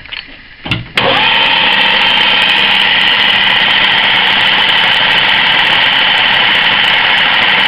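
Centre lathe switched on about a second in and then running steadily at full speed, its turning tool cutting along a metal bar to take the spigot down toward 5 mm diameter.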